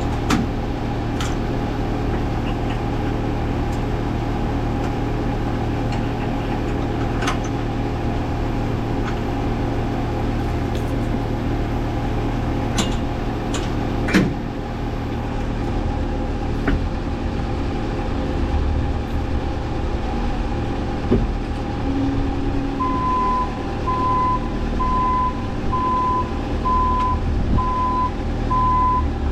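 A machine's engine running steadily, with a few sharp knocks about halfway through. Near the end a reversing alarm starts beeping, a little over once a second, as the machine backs up.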